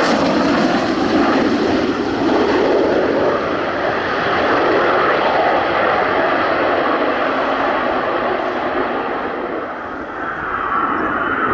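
Military aircraft engine noise, loud and steady, its hiss fading at the top end as the aircraft passes. About ten seconds in it dips briefly, then swells again with a higher whine.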